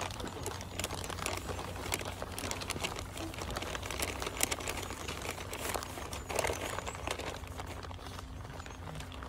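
Brown paper bags crinkling and rustling as they are handled and opened, in a run of irregular crackles.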